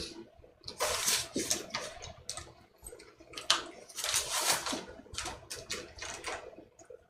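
Irregular swishing strokes and light taps of a Chinese painting brush being worked against a porcelain palette dish, mixing paint.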